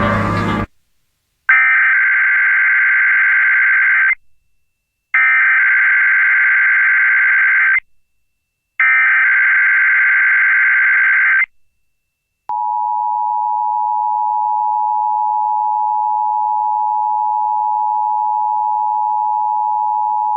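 Emergency Alert System activation for a required monthly test: three bursts of SAME header data, each a couple of seconds of buzzing digital tones, about a second apart. About twelve seconds in, the steady two-tone EAS attention signal starts.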